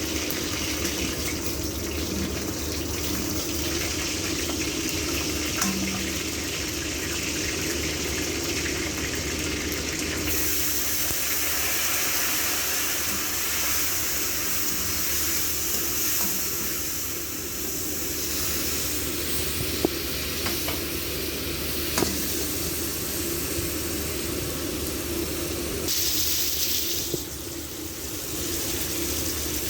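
Chicken karahi sizzling and frying in hot oil in a wok-like karahi, a steady hiss, with a couple of sharp clicks about two-thirds of the way through.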